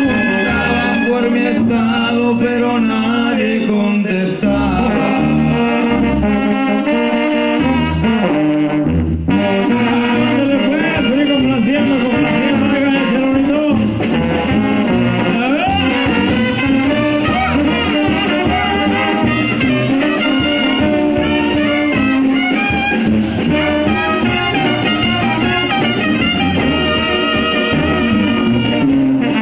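Live Mexican banda music: trumpets and trombones playing over an oom-pah tuba bass and drums, with a man singing into a microphone over the brass. The band breaks off briefly about nine seconds in, then plays on.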